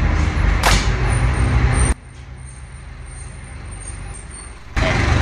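Low, steady rumble of a motor vehicle engine. It drops away suddenly about two seconds in and returns loud near the end.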